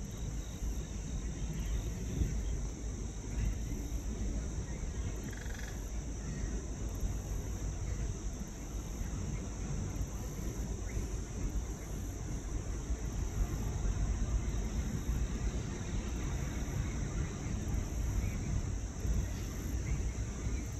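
Insects droning in a steady, high-pitched chorus over a constant low rumble.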